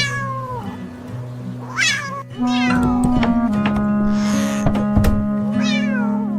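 A cat meowing three times, each call sliding down in pitch, over background music with long held notes. A short hissing whoosh about four seconds in.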